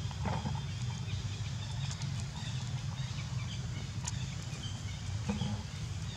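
Outdoor ambience: a steady low rumble with faint high chirps and a few soft clicks scattered through.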